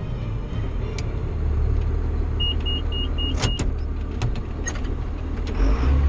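John Deere 7800 tractor's diesel engine running steadily, heard from inside the cab, with five short high beeps from the cab about halfway through. The engine grows louder near the end.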